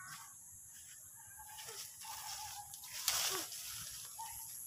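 Faint outdoor ambience in dense tropical foliage: a steady high hiss, a few faint short calls, and a brief rustle of leaves about three seconds in.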